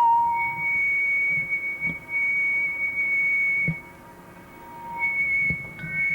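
Audio feedback squeal: a steady, pure high whistling tone that jumps to a higher pitch early on, drops out briefly a little past the middle and then comes back, with a few soft low thumps underneath. This is typical of a camcorder microphone picking up a TV speaker that is playing its own output.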